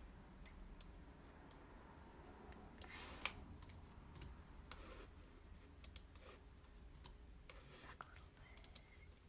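Near silence: a low steady hum with faint, scattered clicks at irregular intervals.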